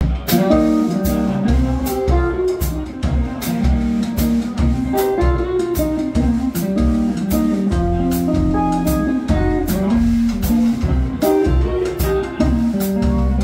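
Live blues band playing an instrumental passage: a Fender electric guitar playing riffs over a walking upright double bass and a drum kit keeping a steady beat.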